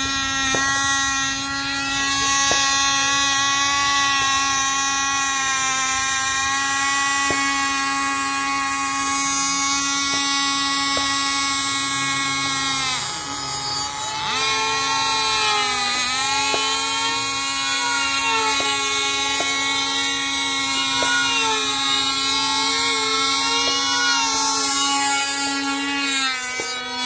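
Small two-stroke glow engines of control-line combat model airplanes running flat out with a high, steady whine. From about halfway a second engine joins, its pitch rising and falling in a regular rhythm as the plane circles on its lines.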